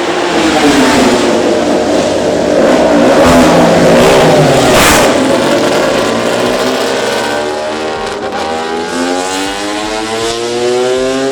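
Racing motorcycle engine revving loudly, its pitch sweeping down and then climbing again over the last few seconds, with a short rasping burst about five seconds in.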